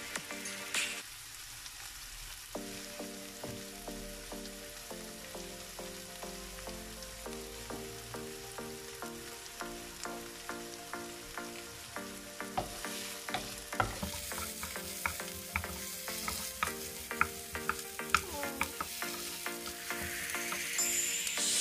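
Diced onions and garlic sizzling in oil in a non-stick frying pan. From about halfway through, a wooden spoon clicks and scrapes against the pan as they are stirred, and the sizzle grows louder near the end.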